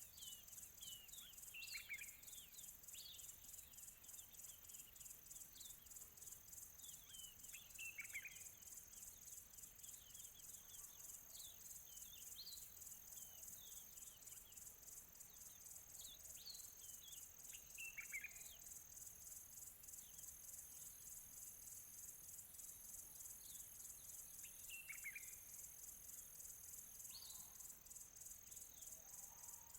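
Faint birdsong of short, quick chirps sweeping downward in pitch, the loudest about 2, 8, 18 and 25 seconds in. Under it runs a steady high, fast-pulsing chirr of insects.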